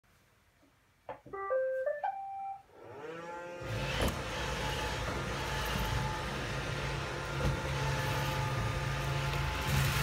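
iRobot Roomba 620 robot vacuum starting a cleaning run: its short start-up tune of stepped beeps about a second in, then its motors spinning up with a rising whine and running steadily, with scattered clicks, growing louder near the end as it drives over the rolled oats.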